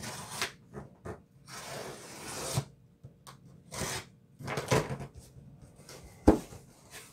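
Packing tape being peeled and ripped off a cardboard box in several rasping pulls, the longest lasting about a second, followed by cardboard flaps being handled and a single sharp knock about six seconds in.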